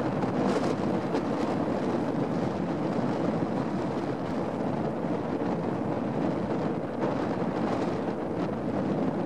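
Strong wind buffeting the microphone, a steady rushing noise over a choppy lake.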